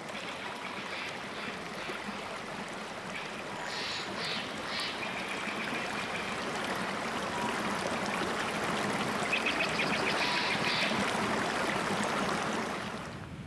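A rushing stream running over rocks: a steady wash of water. Short high chirps come in two spells, a few seconds in and again later. The sound swells a little before fading near the end.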